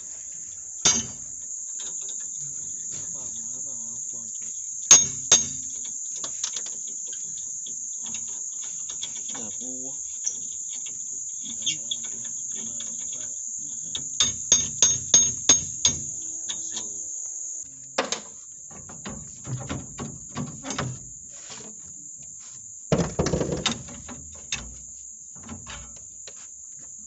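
Metal-on-metal blows on a rusty steel disc plough frame as it is knocked apart: a few single sharp strikes, then a quick run of about five, then clusters of lighter knocks. Under them, crickets chirr steadily at a high pitch.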